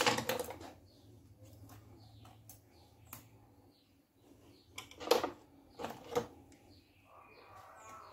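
Sharp metallic clicks and small ticks of a hand tool working a Seeger circlip on the gearbox shaft of a Gilera 200 motorcycle engine, as the clip is pried open without circlip pliers. There is one click at the start and a louder cluster of clicks about five to six seconds in.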